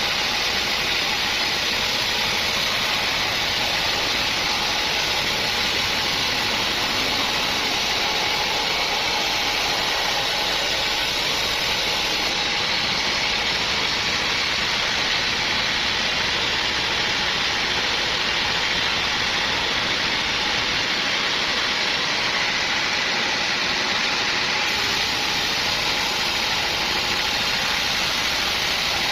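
Sawmill machinery running steadily: a constant mechanical noise with a strong high hiss and a faint steady hum, unchanging throughout.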